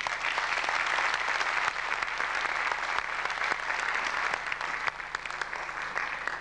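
Audience applauding: a dense, steady clapping that falls away at the very end.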